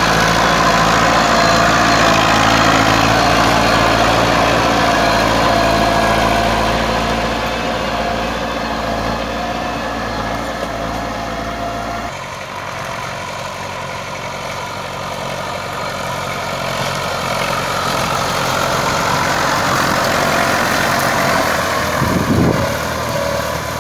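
IMT 560 tractor's three-cylinder diesel engine running steadily under load while dragging logs. About halfway through there is a cut, after which the engine is farther off and quieter, growing louder again as the tractor comes closer.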